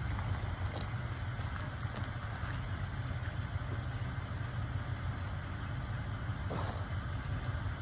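Steady low rumble of a storm chaser's vehicle under a wash of wind noise, with a few faint ticks and a brief louder gust of hiss about six and a half seconds in.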